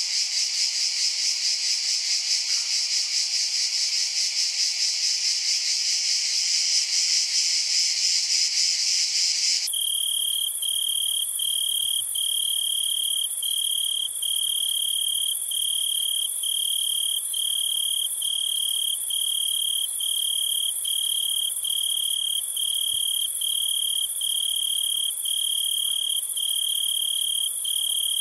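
Insects chirping and buzzing: first a dense, continuous high buzz, which about ten seconds in switches abruptly to a cricket's regular chirps, a little more than one a second, over a thin high hiss.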